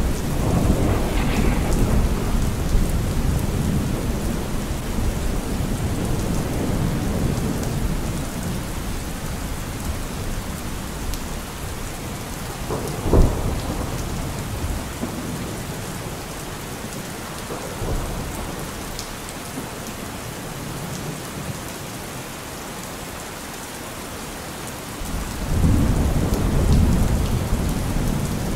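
Steady rain with thunder: low rumbling in the first few seconds, a sharp clap about 13 seconds in, and another loud rumble near the end.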